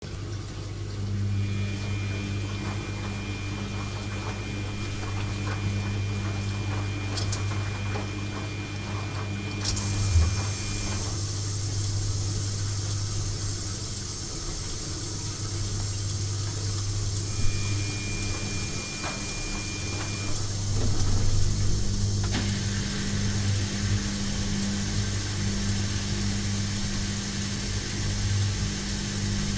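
Washing machine running: a steady low motor hum under an even hiss that turns brighter about ten seconds in, with a brief knock at that moment.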